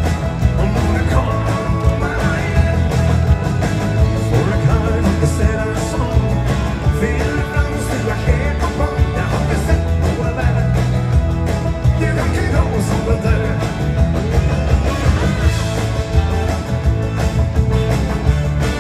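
Live band playing upbeat rock and roll on electric guitars, bass, drums and keyboards, with a steady driving beat, heard from the audience in a large arena.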